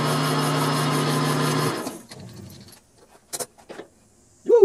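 Grizzly G4000 bench metal lathe running steadily with a brass part spinning in the chuck, switched off a little under two seconds in and winding down. A few light clicks follow as a micrometer is set on the part, then a short falling tone near the end.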